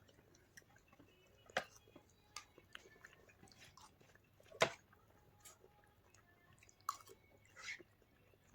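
Quiet eating sounds: people chewing food, with soft scattered mouth clicks and smacks. A few sharper clicks stand out, about a second and a half, four and a half and seven seconds in.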